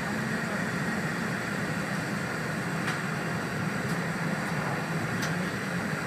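Steady running noise of an E4 series Shinkansen at speed, heard inside the passenger cabin: an even low rumble with hiss above. A few faint ticks come through around the middle.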